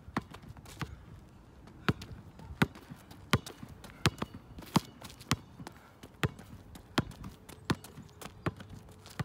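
Basketball dribbled on an asphalt court: sharp, steady bounces about once every three quarters of a second.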